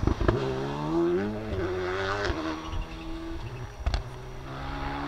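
Škoda Fabia Rally2 car's turbocharged four-cylinder engine revving up hard as it accelerates away, dropping in pitch at an upshift about two seconds in. A single sharp crack comes near four seconds, and then the engine picks up again.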